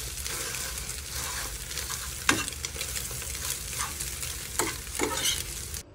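Scrambled eggs sizzling in a stainless steel frying pan while a metal fork stirs them, scraping against the pan in irregular strokes. The sound cuts off abruptly near the end.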